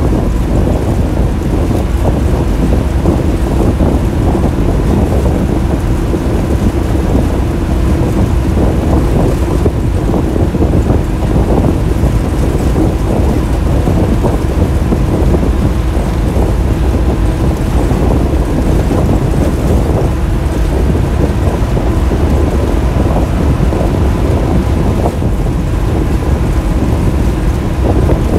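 Steady loud rumble of a bus engine and road noise heard inside the driver's cab while the bus drives at speed, with a faint steady whine running through it.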